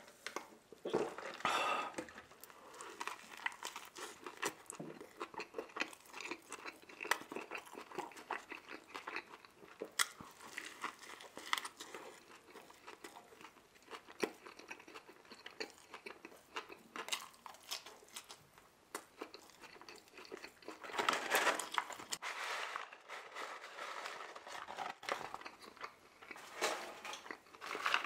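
A person chewing and biting into a McDonald's burger close to the microphone, a steady run of small clicks and crunches. There are louder stretches about three-quarters of the way through and again near the end.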